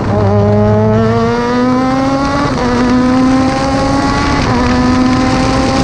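Open-wheel F3 race car's engine accelerating hard, heard from the cockpit. Its pitch climbs steadily and drops sharply twice, about two and a half and four and a half seconds in, as it shifts up. Wind rush grows as speed builds.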